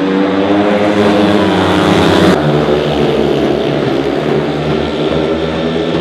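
Speedway motorcycles racing, their single-cylinder engines running hard with a pitch that rises and falls; the sound changes abruptly about two seconds in.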